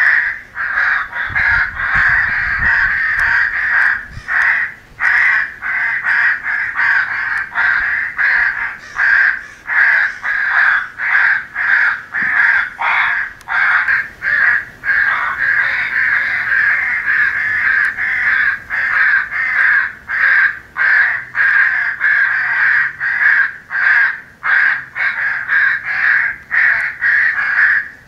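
Many crows cawing at once, a dense, unbroken run of harsh caws with only brief gaps: a recorded crow-calling sound file made for an electronic game caller.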